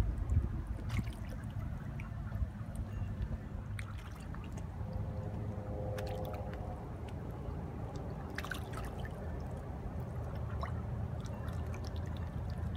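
Small drips and splashes of water as a golden retriever dips her muzzle in the shallows at the edge of a dock, over a steady low rumble. A faint humming tone comes in for a couple of seconds midway.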